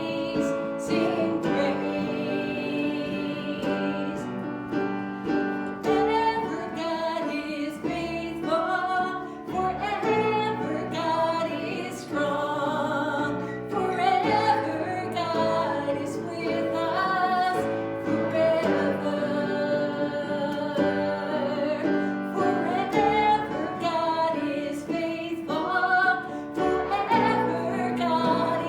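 Music with singing: sung melody lines over sustained keyboard or piano accompaniment, steady and continuous.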